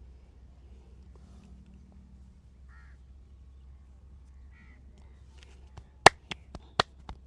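Near the end, a quick run of about six sharp snaps from the massage within a second and a half, one of them much louder than the rest. Two faint short calls sound earlier, over a low hum.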